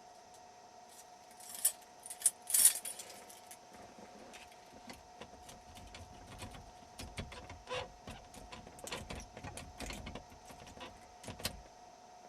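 Steel jiggler keys rattling and scraping in the keyway of a Club steering-wheel lock while a tension wrench holds the cylinder. There is a louder jangling clatter about two seconds in, then a steady run of small metallic clicks and scrapes as the keys are worked.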